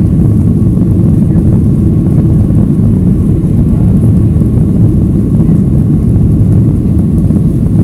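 Steady low rumble of a Boeing 737 airliner's jet engines and rushing air, heard inside the passenger cabin as it climbs out after takeoff.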